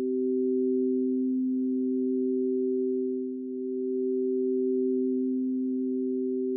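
Two steady electronic tones held together, one low and one a little higher, with a brief dip in loudness about three and a half seconds in.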